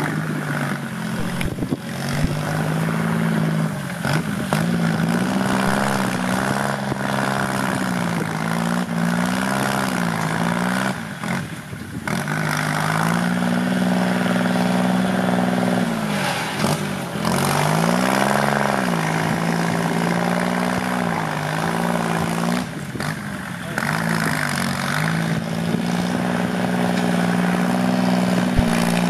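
Kubota L3608 tractor's three-cylinder diesel running hard through a loud racing exhaust while pushing soil, its pitch dipping and coming back up about six times as the load and throttle change.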